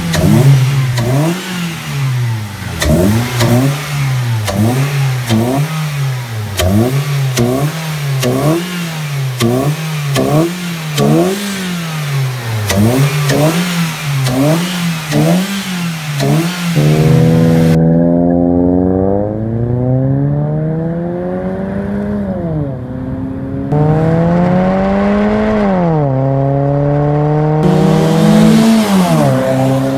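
Ford Focus 2.0-litre four-cylinder engine breathing through an aftermarket full exhaust with dual exits and a K&N cone air intake. It is blipped in quick repeated revs, about one a second. Then the car accelerates under load, the note rising steadily and dropping sharply at gear changes, once about two-thirds in and twice near the end.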